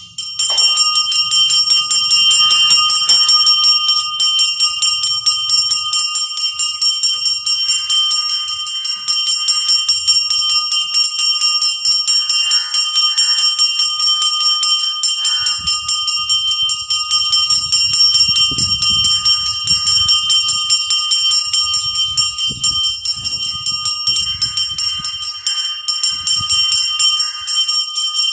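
Puja bell rung rapidly and without a break, a steady metallic ringing of many quick strikes, as the lamp is waved before the deity in worship.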